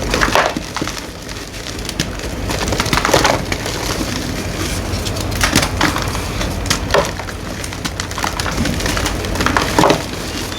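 Green gym chalk being crushed, crunching and crumbling in irregular bursts, with a handful of louder crunches a few seconds apart.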